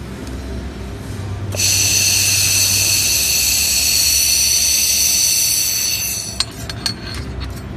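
Fiber laser welder working on stainless steel: a loud high-pitched hissing whine with several steady tones starts about a second and a half in and runs for about four and a half seconds, then cuts off, followed by a few sharp clicks over a low machine hum.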